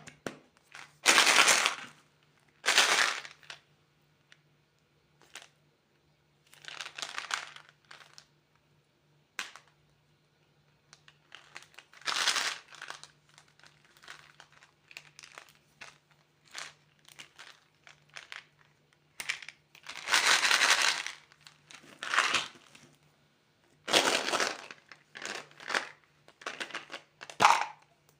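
Plastic candy wrappers and packaging crinkling in irregular bursts, with small clicks and taps in between.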